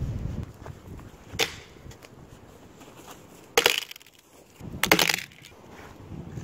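Dead wood cracking and crunching in three short cracks: a faint one early and two louder ones just past the middle, about a second and a half apart.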